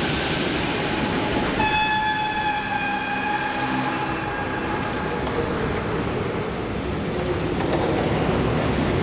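Metro train braking to a stop at the platform, with a steady high brake squeal for about four seconds that sinks slightly in pitch, over the rumble of the train.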